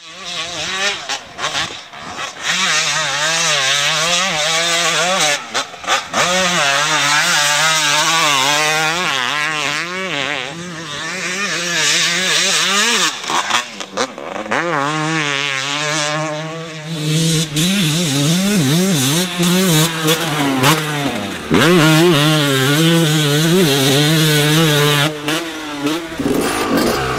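Two-stroke motocross bike engine revving hard as it is ridden, the pitch climbing and dropping again and again through throttle blips and gear changes.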